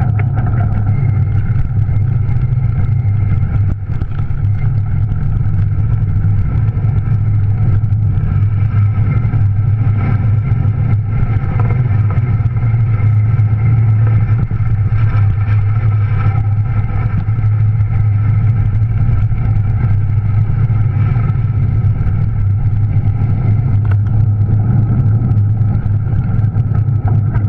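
Juiced RipCurrent S electric bike's motor running while riding, its hum and the ride's vibration carried straight to the camera through a rigid aluminium mount with no sound isolation. Steady and loud throughout, with a brief dip about four seconds in.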